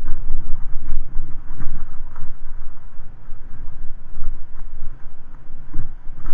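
Wind buffeting a moving camera's microphone: a heavy, uneven low rumble, broken by scattered short knocks from the ride over a rough, muddy track.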